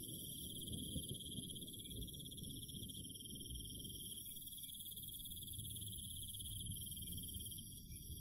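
Insects trilling: a steady, high, finely pulsing trill with fainter high tones above it, over a low rumble. The trill cuts off abruptly at the very end.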